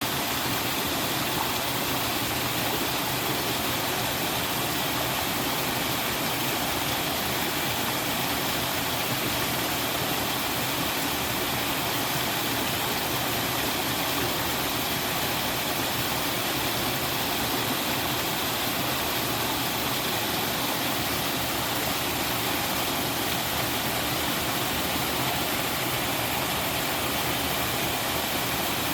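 Water pouring over a three-tiered, moss-covered mountain waterfall and splashing into the stream below in a steady, even rush.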